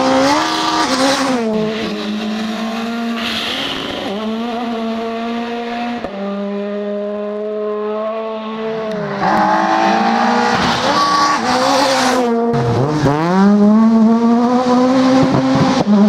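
Rally car engines at high revs on a gravel stage, heard in several separate passes: the pitch holds high, then dips and climbs back at gear changes and lifts off the throttle. About three-quarters through, one car's engine drops sharply in pitch and rises again as it slows and accelerates away.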